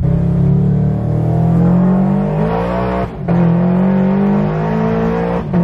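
Supercharged Scion FR-S flat-four engine accelerating hard, heard from inside the cabin. Its pitch climbs steadily, breaks briefly about three seconds in as it shifts up, then climbs again until another upshift near the end.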